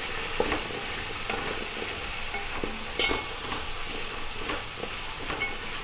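Sliced onions, shallots, green chillies and curry leaves sizzling in coconut oil in a metal pan, as they soften, while a wooden spatula stirs them, scraping and tapping the pan. A sharper knock of the spatula comes about three seconds in.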